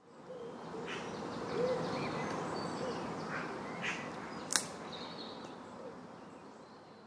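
Short chirps over a steady hiss of outdoor ambience, fading in at the start and out toward the end, with one sharp click about four and a half seconds in.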